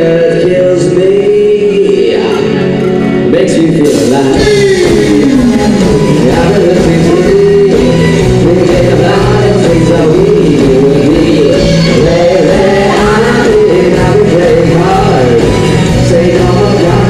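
Live band playing with a singer's voice over the instruments; the sound grows fuller in the low end about four seconds in.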